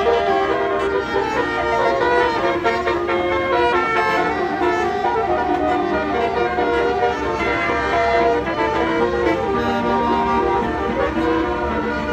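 Basuri multi-tone musical 'telolet' bus horn playing a tune: several steady horn notes sounding together and stepping from pitch to pitch.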